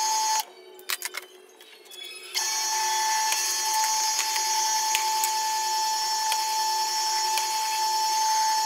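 Benchtop drill press running with a steady whine. The whine drops away abruptly about half a second in, leaving a few sharp metal clicks, and comes back about two seconds later.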